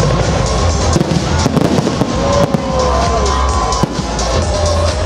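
Fireworks display: aerial shells bursting in quick succession with crackling, heard over loud music.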